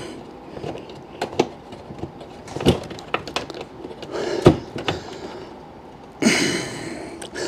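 Scattered clicks and sharp knocks of a screwdriver and metal parts as the Jeep TJ's upper grille mount is leaned on and worked into line; the loudest knock comes about halfway. Near the end there is a strained exhale of effort.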